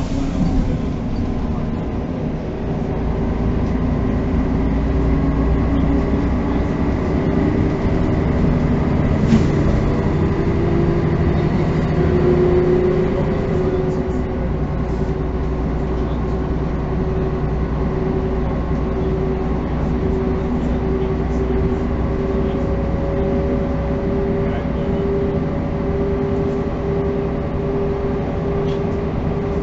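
Inside a moving 1985 Mercedes-Benz O405 city bus: the diesel engine and drivetrain pull up in pitch and loudness over the first few seconds, then run at a steady pitch with a steady whine as the bus cruises.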